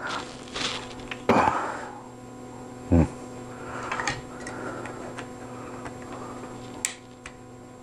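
Handling noise from a microphone boom-arm fitting being screwed on and tightened by hand: scattered small clicks and rubbing of plastic and metal parts, with two louder knocks about one and three seconds in, over a steady low hum.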